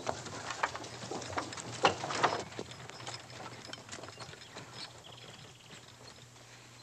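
Horse-drawn wooden farm wagon pulling away: hoof clops and knocks from the wheels and wagon bed, busy for the first couple of seconds and then fading off, with birds chirping.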